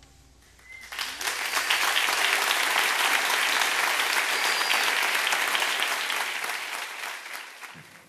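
Audience applauding, rising about a second in and dying away near the end.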